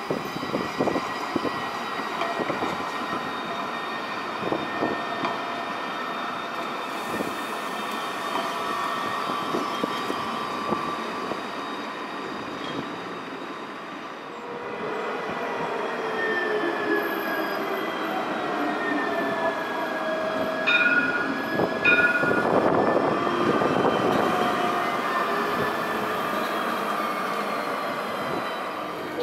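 Alstom Citadis 305 steel-wheeled trams passing on street track: electric drive whining, with steady high tones and, in the second half, tones that slide down and up in pitch. Two short beeping tones sound about a second apart some two-thirds of the way through.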